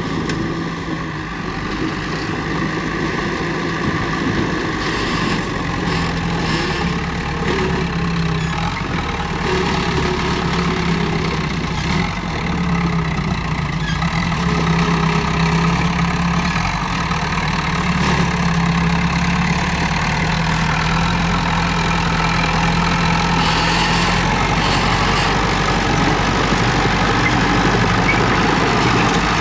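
Diesel engine of a Komatsu D31P crawler bulldozer running steadily, its pitch shifting a little and growing slightly louder about halfway through.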